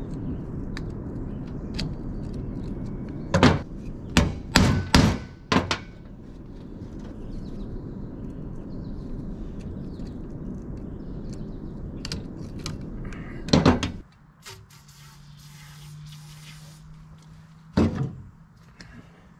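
Knocks and clunks of work on a tractor's replacement half shaft, U-joint and yoke: a quick run of five loud knocks a few seconds in, a few lighter clicks, then single knocks about two thirds through and near the end. Under the first part is a steady rushing noise that cuts off suddenly, leaving a faint low hum.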